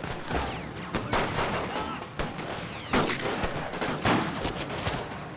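Rifle shots, a string of several sharp reports at uneven intervals, about one every half second to second.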